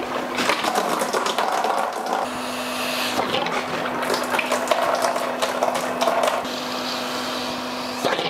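Petrol pouring in a thin stream from under the car and splashing into a plastic drain pan, with lots of small spatters. A steady hum runs underneath, missing for about the first two seconds.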